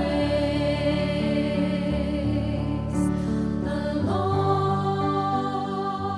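Slow, gentle music of long held chords, with wordless singing gliding into a held note about four seconds in.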